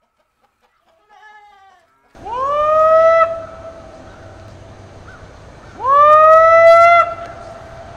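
A farmer's long whoop calls to bring cattle in for feeding: two loud calls, each sliding up in pitch and then held for about a second before breaking off, with a fainter call about a second in.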